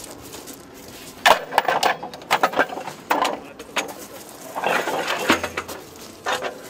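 Irregular metallic clanks, knocks and rattles as a crew works an M777 155 mm towed howitzer's breech and handwheels. The knocks come in a quick uneven string, beginning about a second in.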